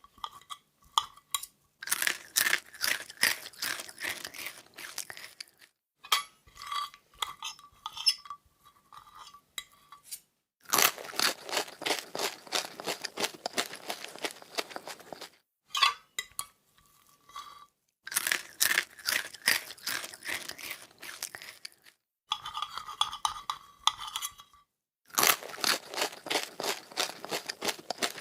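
Crunchy food being eaten off a plate: long runs of rapid, crisp crunching chewing, alternating with sparser stretches of single crunches and light clinks against the plate.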